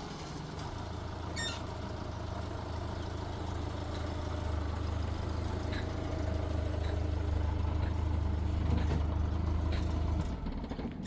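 An engine or motor running steadily with a low hum, stopping about ten seconds in.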